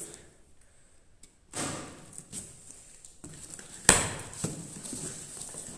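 A cardboard shipping box being opened by hand: flaps and cardboard scraping and rustling, with one sharp knock about four seconds in, the loudest sound.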